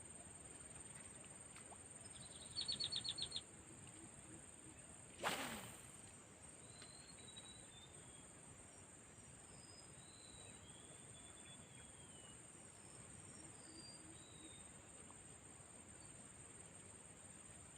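Steady high drone of insects, crickets or similar, in an outdoor swamp chorus. A quick trill of about eight high pulses comes near the three-second mark, a single sudden swish about five seconds in, and faint bird chirps scattered through the rest.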